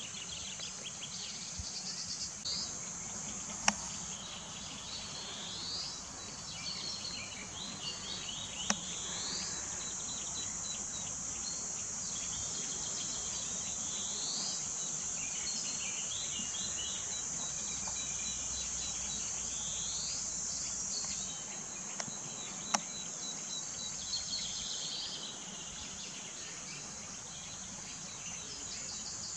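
A steady high-pitched insect chorus, with short rising bird chirps every few seconds. Three sharp clicks stand out above it, the loudest about four seconds in, the others near nine seconds and about twenty-three seconds in.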